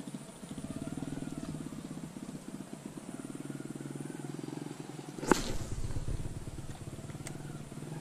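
Small motorcycle engine running steadily with a fast pulsing note. A little past halfway a sharp click stands out as the loudest sound, with a low rumble after it.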